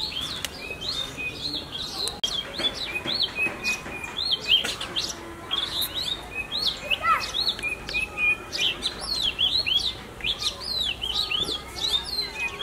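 Small birds chirping and twittering, many short, quick calls overlapping without a break.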